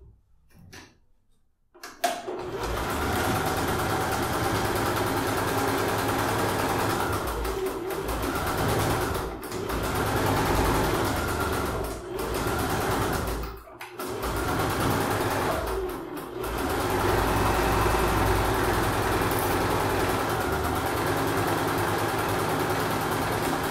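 A household electric sewing machine stitching a seam through layered bag fabric. It starts about two seconds in, runs steadily and stops briefly a few times as the fabric is guided.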